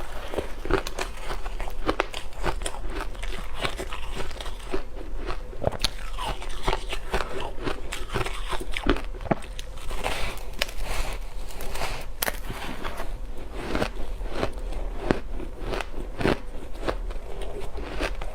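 Ice being bitten and chewed close to the microphone: a dense run of crisp crunches and crackles, one bite after another.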